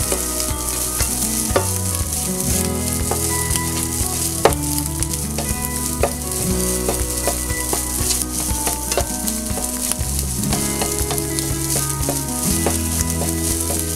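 Fried rice with egg and ham sizzling in hot oil in a frying pan while a spatula stirs and tosses it, with frequent sharp clicks of the spatula scraping and tapping the pan.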